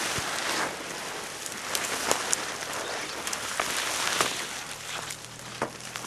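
Evergreen branches rustling and scraping against a person and camera pushing through dense young fir trees, with scattered sharp snaps of twigs breaking.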